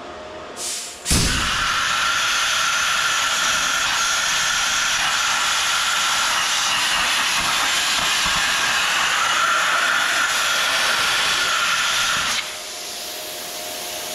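Handheld plasma cutter cutting a 5/8-inch hole through steel plate: the arc starts sharply about a second in and runs as a steady loud hiss with a thin high whine, then cuts off near the end, leaving a softer hiss of air from the torch.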